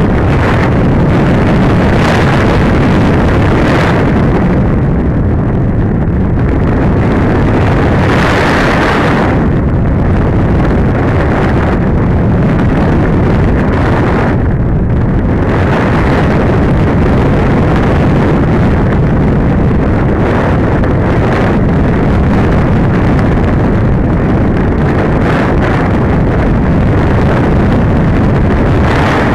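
Loud, steady wind noise from air rushing past the onboard camera's microphone on a Masterline Preacherman RC glider in flight. The hiss swells and eases a few times, for example around two to four seconds in and again around eight to nine seconds in.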